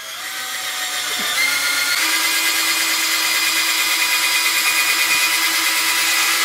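Electric drill spinning a rod-building reamer bit through the bore of a foam rod-handle grip, opening it up to fit the rod blank. The motor whine rises in pitch over the first two seconds as it speeds up, then holds steady.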